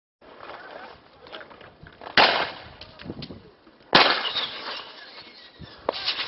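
Two loud tear gas launcher shots about two seconds apart, each a sharp bang with a short echoing tail, then a fainter crack near the end.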